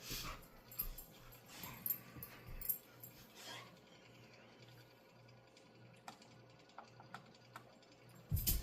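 Faint handling sounds at a workbench: a few soft scuffs and small clicks over a steady low hum, with a louder knock near the end.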